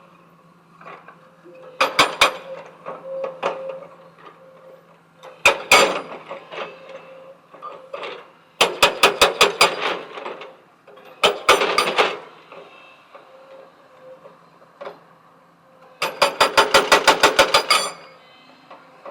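Hydraulic rock breaker on a backhoe loader hammering stone in short bursts of rapid blows, about six a second, with the longest burst near the end. The machine's engine runs steadily underneath.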